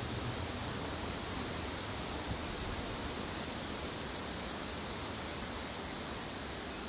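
Steady, even hiss of background noise with no bird song in it.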